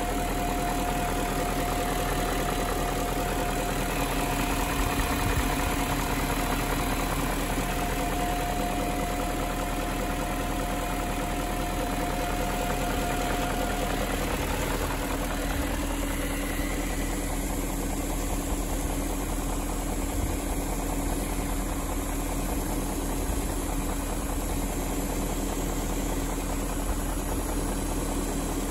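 BMW E38 740i's 4.4-litre V8 idling steadily while warming up after a cold start. A steady whine over the engine fades out a little past halfway.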